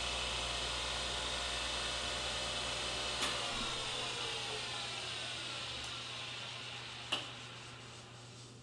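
Reid surface grinder's spindle motor running with a steady whine, switched off with a click about three seconds in, then coasting down, its pitch falling as the sound fades. A sharp knock near the end.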